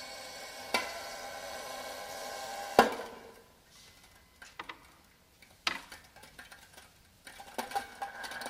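Free-improvised music on a stringed instrument prepared with small objects. A steady grainy drone runs with a knock about a second in and a sharp, ringing strike near three seconds, then drops to sparse small clicks and taps.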